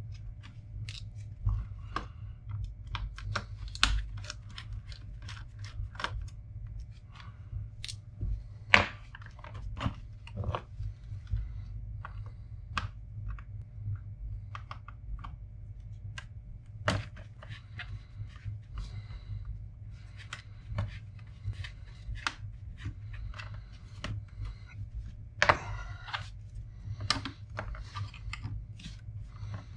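Irregular small clicks, taps and scrapes of gloved hands turning a loose Torx screwdriver bit by hand in a laptop's screws and handling its plastic case and hard-drive parts. A steady low hum runs underneath.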